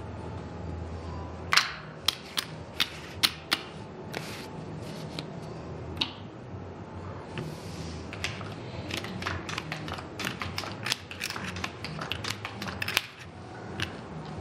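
Casino chips clicking and clacking against one another as they are picked up, sorted and stacked on a felt blackjack table: a few loud clacks about a second and a half in, then a longer run of quick, lighter clicks in the second half.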